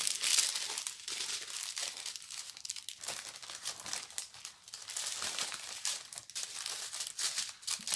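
Small clear plastic bags of diamond painting drills crinkling as they are handled, an irregular run of crackles.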